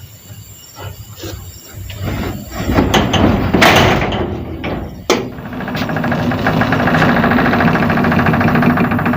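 A metal gate being opened: scraping and clanking that build up, with a sharp clang about five seconds in, followed by a steady humming drone.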